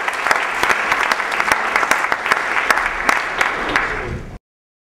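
Audience applause, a dense steady clatter of many hands clapping, cut off abruptly near the end.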